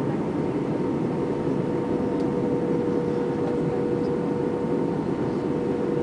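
Airbus A320 cabin noise in flight on approach: the steady roar of engines and airflow heard through the fuselage, with a constant droning hum.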